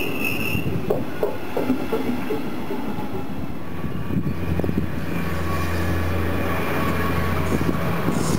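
A double-deck passenger train running past close by, its wheels clicking over the rail joints, with a brief high wheel squeal at the start. After a cut, a steady low electric hum comes from an approaching electric train.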